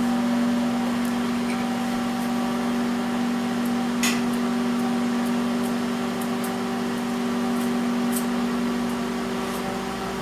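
Microwave oven running with a steady hum while heating dry ice, with a sharp click about four seconds in and a few faint ticks.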